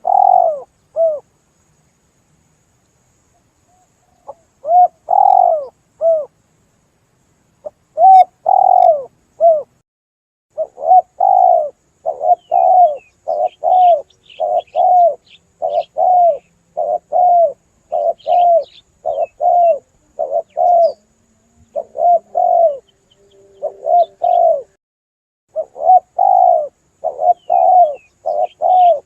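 Spotted dove cooing: a few coos, a short pause, then a steady run of repeated coos. Faint high chirps of small birds come in now and then.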